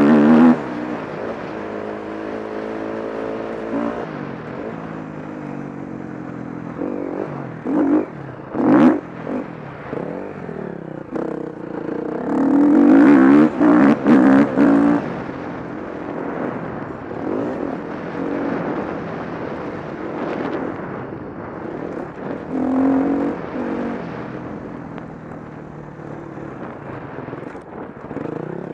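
KTM 350 SX-F four-stroke single-cylinder motocross engine revving up and dropping back again and again as the bike is ridden. The loudest bursts of throttle come about a quarter of the way in and again near halfway.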